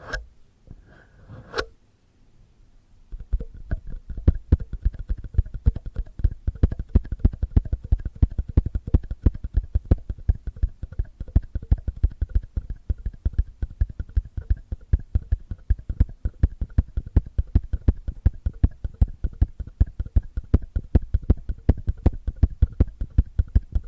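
Fingertips and nails rubbing, then tapping and scratching right on a binaural microphone as ear-cleaning ASMR. A brief rubbing at the start, a pause of about a second, then a fast, steady run of dull, bassy taps, several a second.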